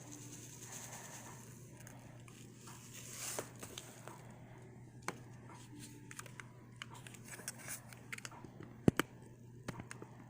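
Objects being handled at close range while coffee is prepared: scattered crinkling and light clicks and knocks, with a brief swell of rustling about three seconds in and one sharp click near the end, over a faint steady hum.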